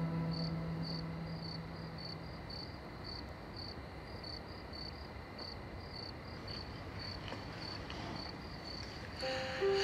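A cricket chirping at a steady pace, about three high chirps a second, over a faint hiss. A low held music note fades out over the first couple of seconds, and music comes back in near the end.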